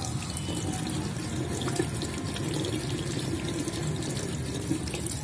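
Tap water running steadily into a washbasin and splashing over an egg as it is rinsed and rubbed by hand.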